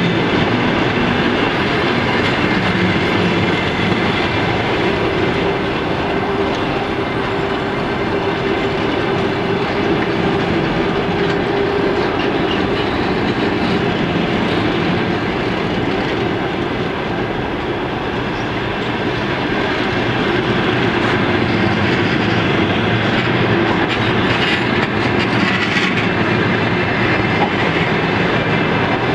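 Long-distance passenger train coaches rolling steadily past the platform, their wheels clacking over the rail joints.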